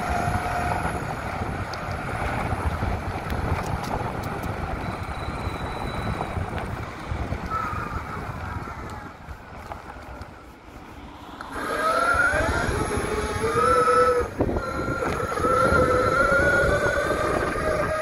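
SYL-08 V3 electric mountainboard under way: steady rumble of its wheels on the ground with wind on the microphone and a faint whine from the electric motors. It goes quieter for a moment past the middle, then the motor whine comes back strongly and rises in pitch as the board speeds up.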